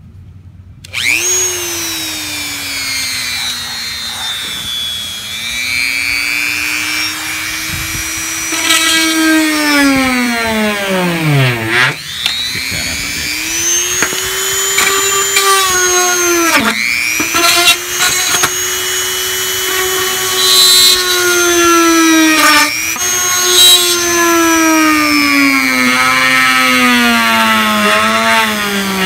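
Handheld rotary tool with a small drill bit starting up and whining as it drills pilot holes into the old glued bristle knot of a vintage shaving brush handle. Its pitch sags and recovers again and again as the bit bites and loads the motor, dipping hardest about twelve seconds in.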